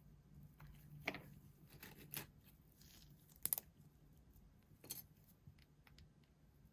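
Faint scattered clicks and light scraping of hand tools working the back glass off a phone, with a few sharper ticks, two close together about three and a half seconds in.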